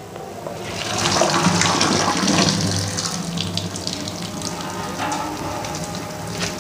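Hot starchy water draining and splashing out of boiled rice through a steel colander into a stainless steel sink, swelling about a second in and then easing to a steadier trickle.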